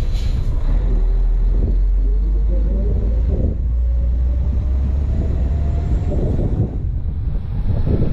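Heavy truck engine running with a low, steady rumble while driving, mixed with wind noise on the microphone. A thin whine rises slowly in pitch from about two seconds in until near the end.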